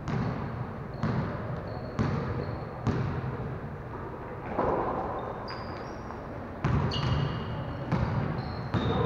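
Basketballs bouncing on a hard gym floor: irregular thuds about once a second, with a few short high squeaks between them.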